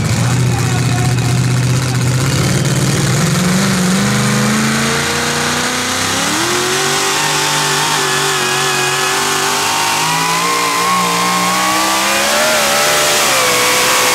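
Competition pulling vehicle's engine running hard under load during a pull. Its pitch climbs steadily, with sudden jumps upward about halfway through and again near the end.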